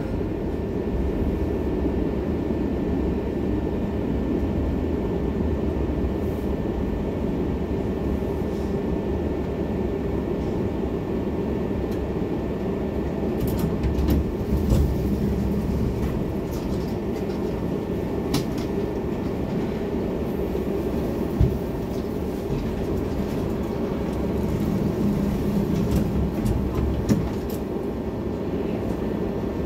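Tram riding on street track, heard from inside the car: a steady low rumble of wheels on rail, with a few scattered clicks and knocks from the wheels and track.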